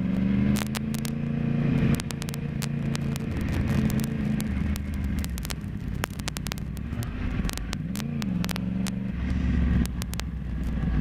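Yamaha YZF-R1 inline-four engine at low road speed, its revs rising and falling several times with throttle on and off. Frequent sharp crackles run over it.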